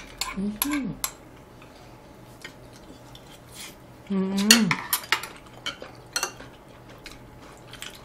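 Chopsticks and spoons tapping and clinking against ceramic bowls and plates as people eat, in scattered light clicks.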